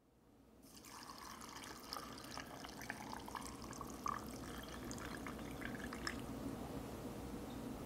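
Salt brine poured from a glass jar into mason jars of root-vegetable sticks: a faint trickle of liquid with small drips and splashes, fading in over the first second.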